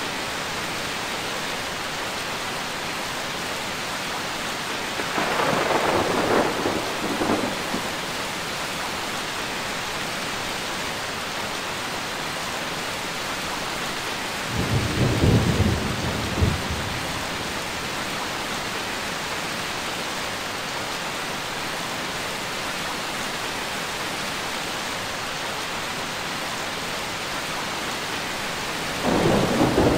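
Steady rain with thunder rolling three times: a rumble about five seconds in, a deeper one about fifteen seconds in, and another starting just before the end.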